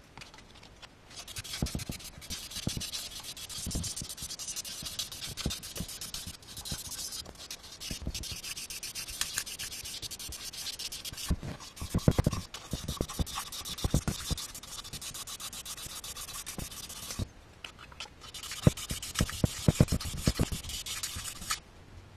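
Cylinder bores of a four-cylinder motorcycle engine block being hand-sanded with 600-grit abrasive paper in rapid back-and-forth rubbing strokes, crosshatching the bore walls, with scattered knocks of the block against the bench. The rubbing starts about a second in, stops for about a second near the end, then resumes.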